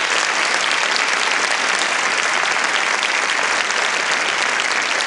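Large theatre audience applauding: steady, dense clapping from many hands.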